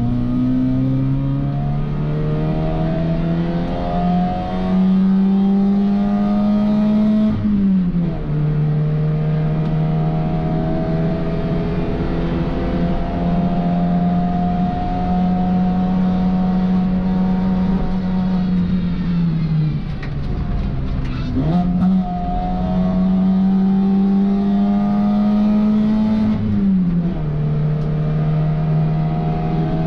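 Opel race car's engine heard from inside the cockpit, revving hard and climbing in pitch, with the revs dropping sharply at an upshift about a quarter of the way in and again near the end. Around two-thirds in, the revs fall away as the car slows, and a quick blip marks a downshift before it pulls again.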